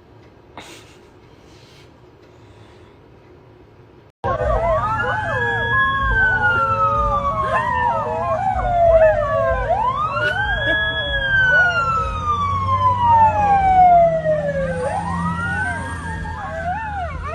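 Siren wailing, starting abruptly about four seconds in: each cycle rises quickly and then falls slowly over about five seconds, with other wavering tones alongside.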